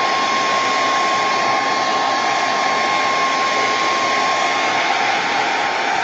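Handheld dryer blowing steadily to dry wet paint: a loud, even rush of air with a steady whine.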